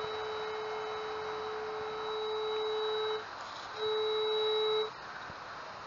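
Metal detector sounding a steady mid-pitched tone for about three seconds, breaking off, then sounding again for about a second: its signal that the search coil is passing over buried metal.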